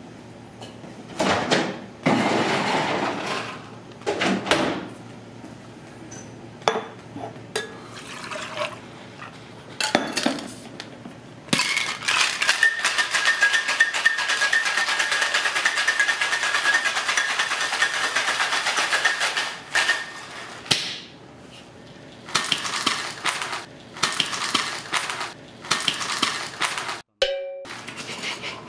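Ice rattling hard inside a stainless steel cocktail shaker, shaken for about nine seconds near the middle, with a metallic ring in the rattle. Before and after the shake come separate clinks and knocks of ice and metal tins being handled.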